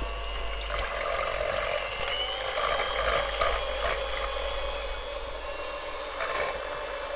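Handheld electric mixer whisking egg whites in a glass bowl: a steady motor whine that rises a little in pitch over the first couple of seconds, with intermittent clatter of the beaters against the glass.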